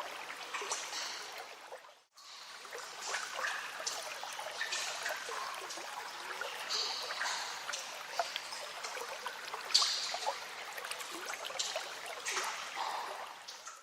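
Water trickling and splashing in a cave stream, a steady rush with many small drips. It drops out briefly about two seconds in.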